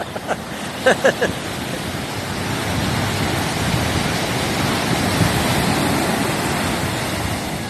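Ocean surf: a wave breaking and washing in, a rushing hiss that builds over the first few seconds and eases a little near the end.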